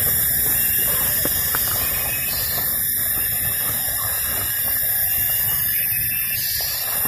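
A steady, high-pitched drone of a forest insect chorus, such as cicadas, held at an even level throughout, with a few faint clicks and rustles underneath.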